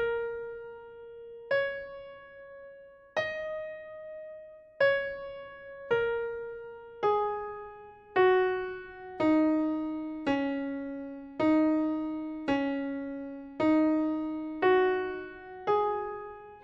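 Slow solo piano melody played one note at a time, each note struck and left to fade before the next, about one a second; the tune steps down in pitch midway and climbs back near the end.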